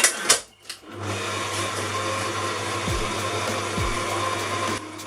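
Electric stand mixer running steadily, creaming butter and sugar, switching on about a second in and cutting off near the end, after a short clatter. Hip hop music with falling bass notes plays underneath.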